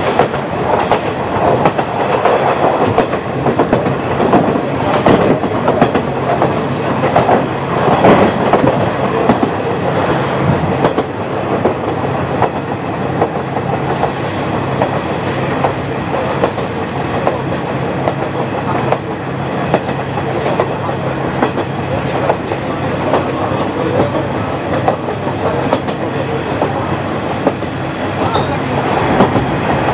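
KiHa 40 diesel railcar running along the line: a steady diesel engine hum under the clickety-clack of wheels passing over rail joints, with scattered clicks throughout.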